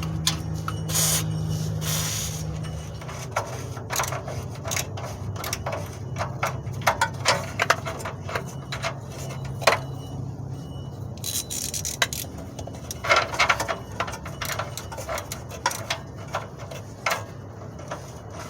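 Clicking and scraping of hand tools working loose a rusty exhaust O2 sensor (bank 2, sensor 2), with a few short hissing bursts near the start and a low hum underneath.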